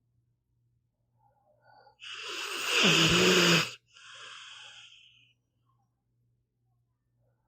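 A sleeping pit bull snoring: one loud, rattling snore about two seconds in that grows louder for under two seconds, followed by a softer breath.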